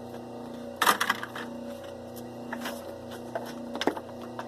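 Wire stripping machine running with a steady hum, with sharp metallic clicks and clatters of scrap copper wire being handled; the loudest clatter comes about a second in and another sharp click comes near the end.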